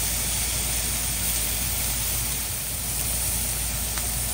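Beef tenderloin sizzling steadily as it sears in hot bacon grease in a smoking cast iron pan, a continuous hiss with a low steady hum underneath.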